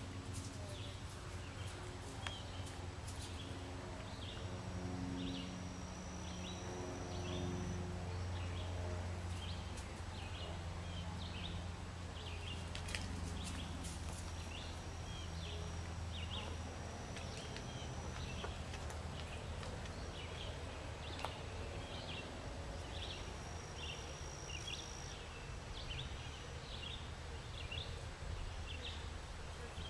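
Outdoor summer ambience: many short high chirps repeating, about two a second, with a longer high steady tone now and then, over a steady low hum.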